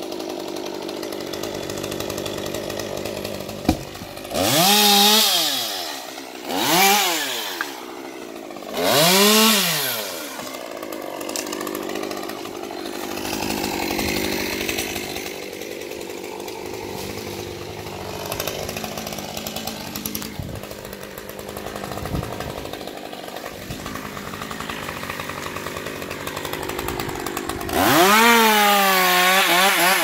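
Two-stroke chainsaw idling, revved up three times in short blips a few seconds in, then opened to full throttle near the end to cut through a small tree stem.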